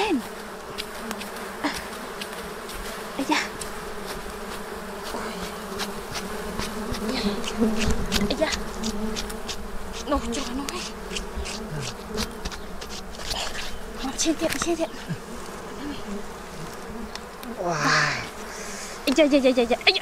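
A mass of honeybees buzzing in a steady hum over an exposed wild comb, the colony disturbed by its comb being cut and handled. Scattered light clicks and rustles run through it, with a brief louder sound near the end.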